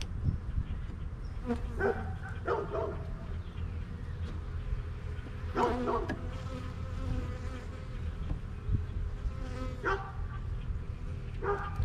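Honeybees buzzing around an open hive, with individual bees flying close past the microphone several times as short, pitched buzzes over a steady low hum.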